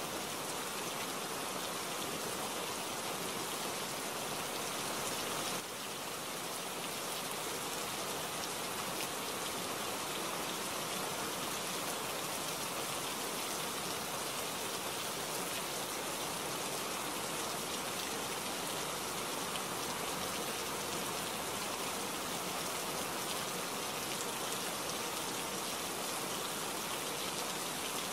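Steady rainfall, an even hiss of rain with no other sound, dipping slightly in level about five and a half seconds in.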